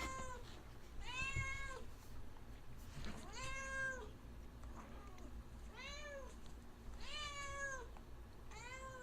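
A cat meowing over and over, about six meows each rising and then falling in pitch and a second or two apart, sounding like "ow, ow".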